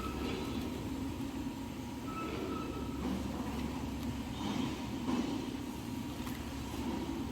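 Manual band saw cutting machine for toilet paper and kitchen towel logs running, a steady mechanical hum with a faint whine that comes and goes about every two seconds.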